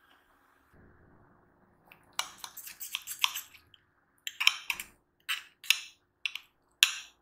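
Kitchen dishes and metal utensils clinking and clattering in several short bursts of sharp knocks.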